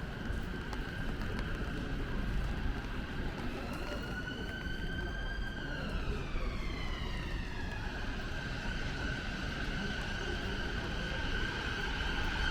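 An emergency vehicle's siren with one slow wail that rises and then falls back. It sits over a steady high tone and the constant hiss of rain and traffic.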